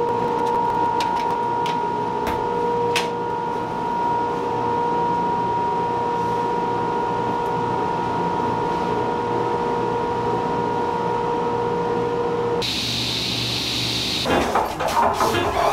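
A steady machine hum holding one pitch, with a few light clicks and knocks in the first few seconds. About three-quarters of the way through the hum cuts off suddenly, and a brief high hiss and then busier sound follow.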